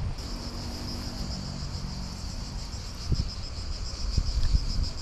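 Cricket singing a steady, high, fast-pulsing trill. A few dull low thumps sound about three seconds in and again near the end.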